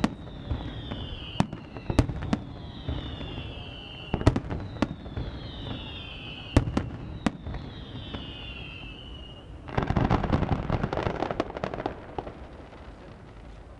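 Festival fireworks: sharp bangs of bursting shells, with a series of whistles that each fall in pitch over about a second and a half. About ten seconds in comes a dense crackle of many rapid pops lasting some two seconds.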